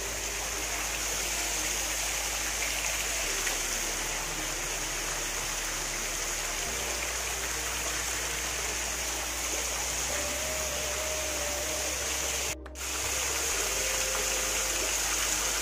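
Water showering steadily off the rim of a canopy roof in a curtain of streams and drops, splashing below. The sound cuts out for a moment about three seconds before the end.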